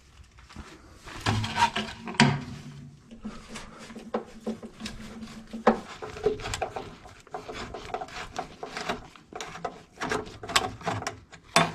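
A hand screwdriver turning a screw into a steel bracket under a dashboard, with irregular clicks, scrapes and rubbing of metal and wiring being handled.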